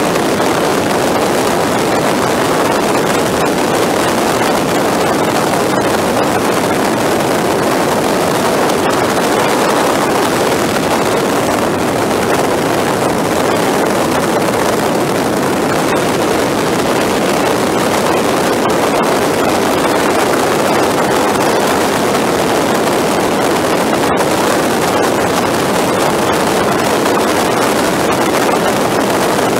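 Steady rush of wind and engine noise from a motorcycle cruising at highway speed, played back at four times speed.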